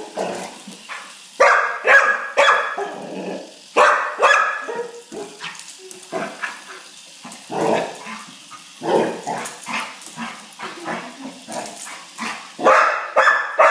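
Dog barking repeatedly at a small HexBug vibrating robot toy, the barks coming in pairs and clusters with short gaps between them.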